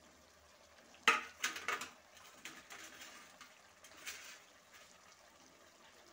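Kitchenware knocking sharply against a pan of cabbage, potato and masala about a second in, followed by a few quick clatters, then soft scraping and sizzling as the food is worked in the pan.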